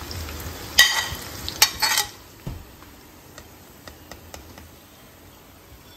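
Sliced onions frying in desi ghee with a soft sizzle, stirred with a spatula that scrapes against the pan in two louder strokes about one and two seconds in, then lighter ticks.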